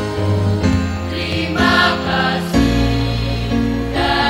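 Mixed choir of boys' and girls' voices singing in harmony, holding sustained chords that change about once a second.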